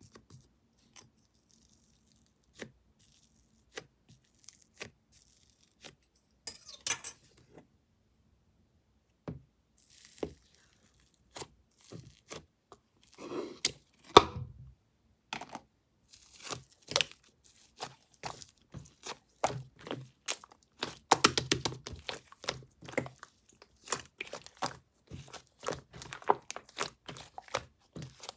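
Strawberry milk slime being squished and stretched by hand, giving irregular sticky pops, clicks and crackles: sparse at first, then coming thick and fast from about halfway through.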